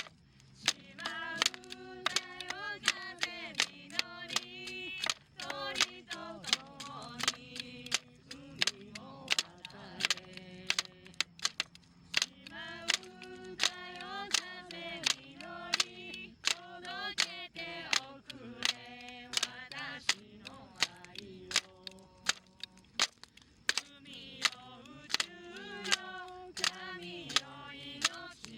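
Voices singing a song unaccompanied, with sharp claps keeping a steady beat about twice a second.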